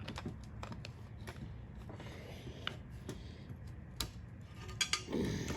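Scattered small metallic clicks and taps of a crescent wrench working at the retaining nut of an old, seized push-button switch on a control panel. There is a sharper click about four seconds in and a brief dull knock near the end.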